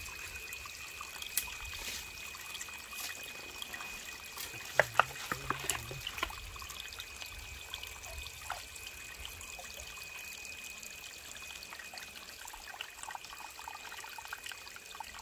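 Shallow water trickling over rocks in a gully, steady throughout. A few sharp knocks stand out about five seconds in.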